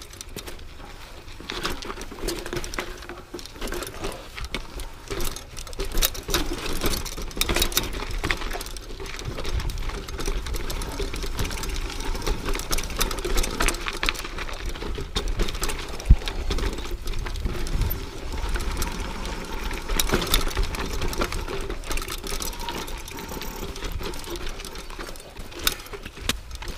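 Mountain bike riding over a dry dirt trail: tyres on loose dirt and rock with the bike's frame and parts clattering and ticking over bumps, and wind rumbling on the rider's microphone.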